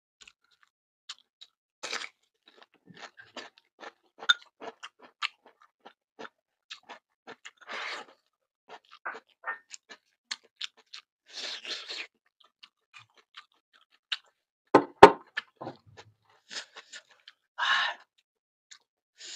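A person eating fried tofu and rice close to the microphone: chewing with many small wet clicks and mouth smacks, and a few short noisy bursts. One loud knock about fifteen seconds in.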